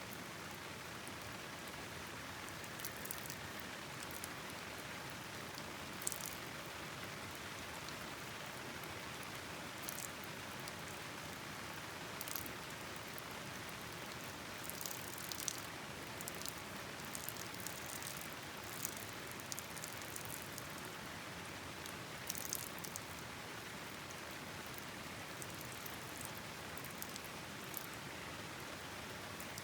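Steady hiss of rain falling together with the rush of a river, broken by scattered sharp clicks and pops at irregular intervals.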